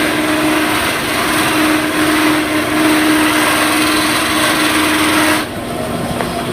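Pneumatic drum sander running with a piece of wood held against its inflated sanding sleeve: a steady hum under a loud rasping hiss that stops sharply about five and a half seconds in, leaving the motor running more quietly.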